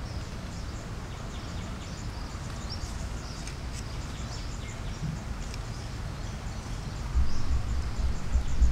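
Outdoor forest ambience: scattered faint, high bird chirps over a low, uneven rumble that grows louder for the last second or so.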